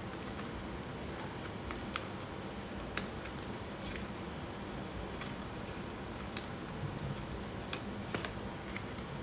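Faint scattered ticks and crinkles of a vinyl decal and transfer tape being handled and peeled from the backing sheet, over a steady room hiss.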